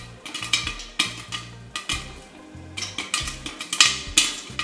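Corn kernels popping in a pressure cooker covered with a glass lid: an irregular scatter of sharp pops, several a second.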